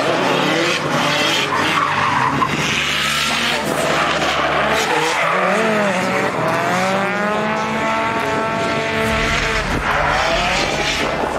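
A drift car's engine revving hard, its pitch climbing and dropping back several times, over the continuous hiss and screech of rear tyres spinning and sliding sideways on the asphalt.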